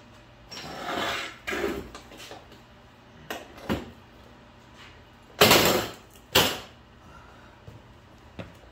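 Tools and metal parts being handled: scattered clanks and knocks, with two louder scraping noises just past the middle.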